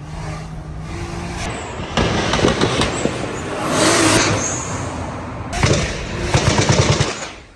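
Car engine idling, then revved hard several times with a rapid crackle; the loudest stretches come about two seconds in, around four seconds in, and near the end.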